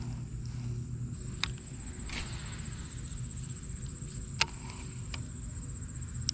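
A steady, high-pitched insect chorus of crickets, with a few sharp clicks from the baitcasting rod and reel being handled. The loudest click comes about four seconds in.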